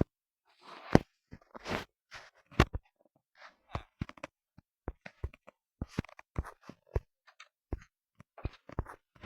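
Irregular clicks, taps and short rustles at uneven intervals, with quiet gaps between them.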